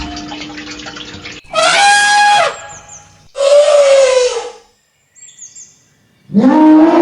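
Two loud animal calls, each about a second long and falling in pitch, followed by faint high chirps of a bird.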